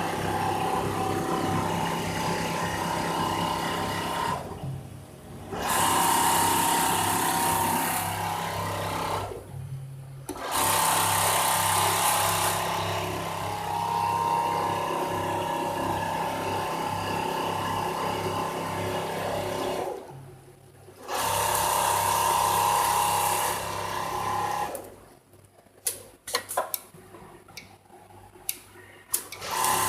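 Richpeace automatic sewing machine running with a steady hum and stitching chatter. It stops briefly three times. Near the end it falls quiet for a few seconds with a run of sharp mechanical clicks, then starts up again.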